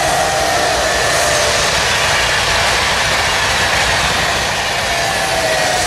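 Double-deck TGV Duplex high-speed train passing close by, its carriages making a loud, steady rush of wheel and air noise with a faint whine running through it.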